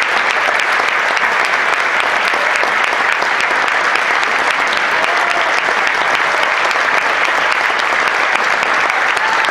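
Audience applauding steadily, a dense mass of hands clapping, with a few voices calling out over it.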